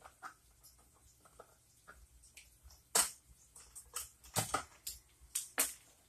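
Hand tools and electrical wiring being handled at a wall box: irregular small clicks, scrapes and rustles, with a sharp click about three seconds in and a cluster of louder clicks over the last two seconds.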